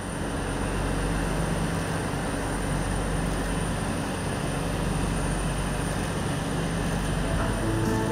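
Steady rushing drone of jet aircraft noise, with a low hum underneath and a faint constant high whine.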